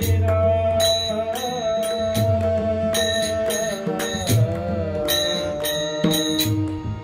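Marathi devotional bhajan: a singer holds a long, ornamented note that bends now and then, over deep pakhwaj (mridang) strokes and small hand cymbals struck in a steady rhythm.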